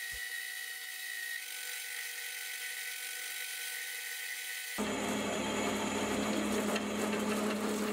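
Hafco AL250G metal lathe cutting a steel spacer: a steady hiss of boring in the centre, with faint high steady tones. About five seconds in it switches abruptly to a louder, fuller cutting sound over a steady low hum as the spacer is parted off.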